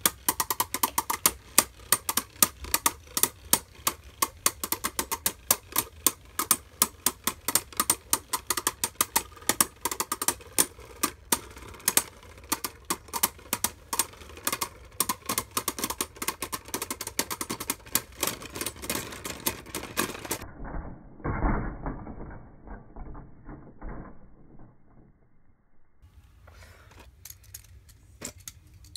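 Two Beyblade Burst spinning tops clashing again and again in a plastic stadium: rapid sharp clicks, several a second. About two-thirds of the way through the clicking stops, and a few duller knocks and rubbing sounds follow.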